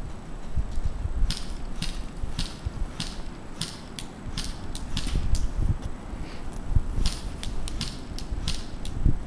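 Airsoft rifle firing single shots: a string of sharp clicks, about two a second and irregularly spaced, starting about a second in, with low wind rumble on the microphone.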